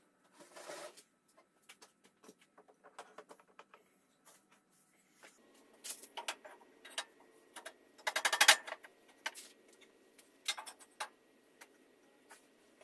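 Scattered clicks, taps and knocks of hand tools and steel parts being handled on a steel-tube motorcycle frame. About eight seconds in comes a quick run of rapid clicks, the loudest sound.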